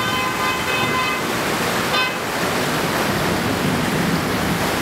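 Muddy floodwater rushing through a city street, a steady loud rush. A car horn sounds for about the first second, then briefly again about two seconds in.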